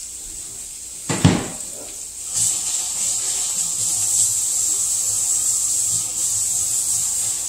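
A single sharp knock about a second in, then sardines and diced peppers frying in a pan with a steady hissing sizzle that sets in about two and a half seconds in.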